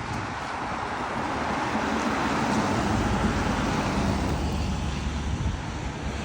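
Road traffic passing on a wet street: tyre hiss from a vehicle that swells and then fades.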